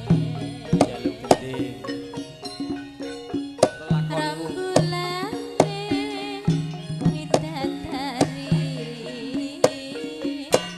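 Javanese gamelan music for a tayub dance: sharp hand-drum (kendang) strokes over sustained metallophone tones, with a female sindhen singer's wavering, ornamented melody.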